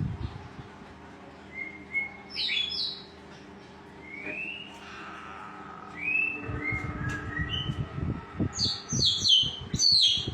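Songbirds calling: scattered whistled notes, some gliding up or down, then a quick series of sharp, high chirps in the last two seconds, the loudest part. A low clatter runs underneath in the second half.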